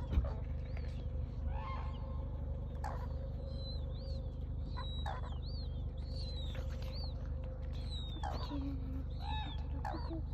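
Red-crowned cranes calling: a run of short, high calls about once a second, with a few louder, lower calls mixed in, mostly late on, over a steady low hum.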